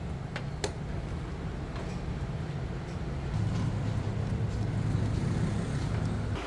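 Low steady rumble like road traffic, louder from about halfway through, with a couple of light clicks about half a second in.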